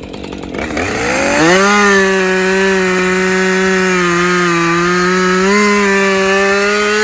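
Commercial-grade Husqvarna chainsaw revving up to full throttle about a second in, then held at high revs with a steady high-pitched engine note.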